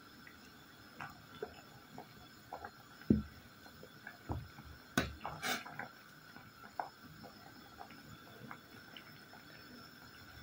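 Pot of fruit infusion at a rolling boil, the bubbles popping and plopping in many small scattered pops over a faint steady hum. A few louder knocks come about three and five seconds in.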